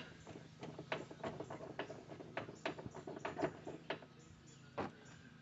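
Irregular light clicks and knocks from hand tools on the parts of a mobility scooter being taken apart: a sharp one at the start, a quick uneven run for about four seconds, then one more near the end, over a faint steady low hum.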